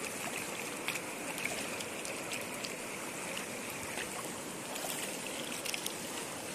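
Fast, turbulent river water rushing close by: a steady rush, with a few brief sharp ticks scattered through it.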